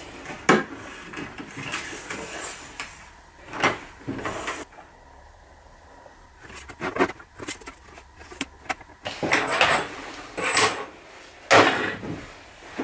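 Long wooden boards being handled on a wooden workbench: irregular knocks and sliding scrapes of wood on wood, with a quieter spell in the middle and sharp knocks about half a second in and near the end.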